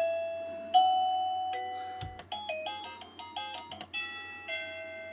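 Wireless kinetic doorbell chime unit playing electronic chime tunes, cut short and switched to a new melody several times as its tune-select button is clicked, stepping through the built-in tunes.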